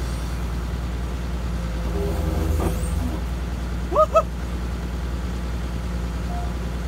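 A steady low engine hum, even in level throughout. About four seconds in, two short rising chirps sound in quick succession.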